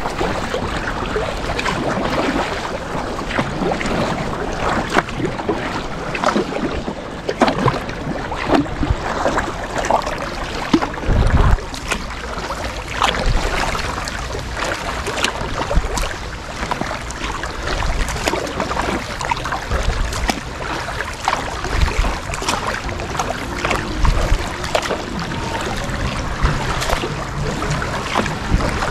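Kayak paddle strokes splashing and dripping in river water, with wind buffeting the microphone in low thumps now and then.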